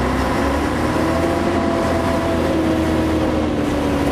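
Cross-country truck driving along a dirt track, heard from inside the cab: the engine and drivetrain run steadily with a low rumble, and a faint whining tone rises slightly and then falls.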